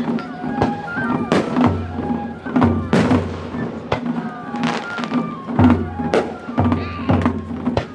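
Music playing, with held notes and a recurring bass, mixed with repeated bangs and crackles of fireworks bursting.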